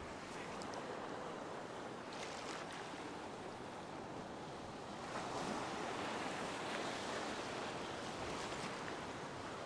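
Ocean surf washing in the shallows, a steady rush of small breaking waves that grows louder about five seconds in.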